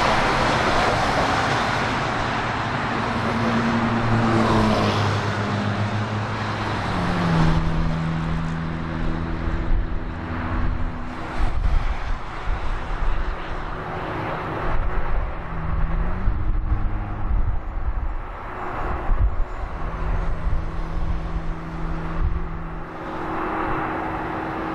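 Outdoor engine and traffic noise: a broad rush over the first several seconds, then steady low engine hums that shift in pitch a few times, with uneven louder bursts.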